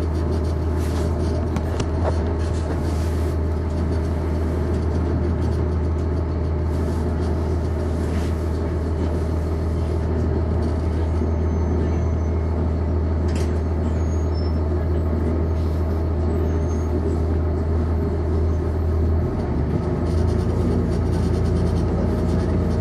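Cummins ISC diesel engine of a 1999 NovaBus RTS transit bus, heard on board as a steady low drone. The drone changes slightly near the end.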